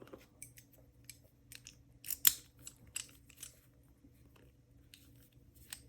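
Scattered small metallic clicks and taps from handling a large Master Lock padlock, the loudest a sharp click about two seconds in.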